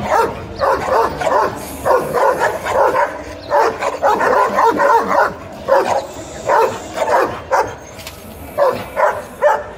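Long-haired black-and-tan dog barking repeatedly, about two barks a second, with a short lull near the end.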